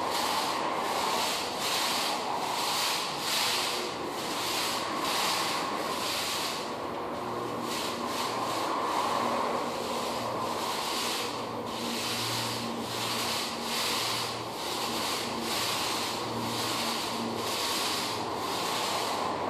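Window glass being wiped by hand, repeated rubbing strokes at about two a second with a short pause about six seconds in, over a steady hum.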